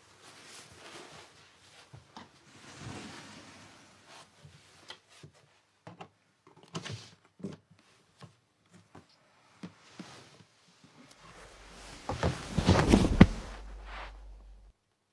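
Soft rustling and scattered small knocks, then a louder burst of clattering knocks over a low rumble near the end.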